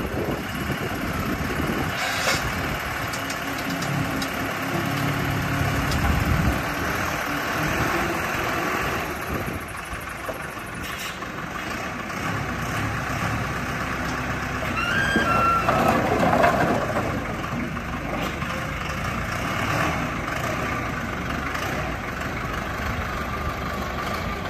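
Lehman ZL936GK wheel loader's diesel engine running steadily, rising in pitch and loudness at times as the hydraulic log grapple works. A short rising whine is heard about midway.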